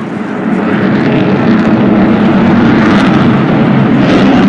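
A low-flying aircraft's engine, growing louder about half a second in and then staying loud and steady.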